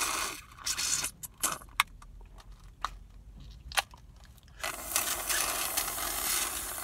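Slurping iced coffee through a collapsible reusable straw: a noisy rasping suck of drink and air, in short spells near the start and again for the last couple of seconds. A few sharp clicks come in between.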